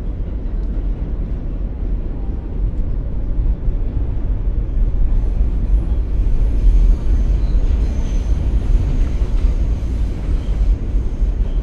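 New York City Q subway train running on the track, heard from inside the car as a loud, steady low rumble. A faint high-pitched whine joins it about five seconds in.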